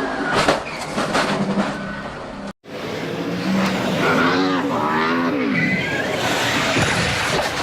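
NASCAR stock car V8 engines running at racing speed, with several sharp knocks in the first two seconds. The sound cuts off abruptly and resumes with engines revving, their pitch rising and falling.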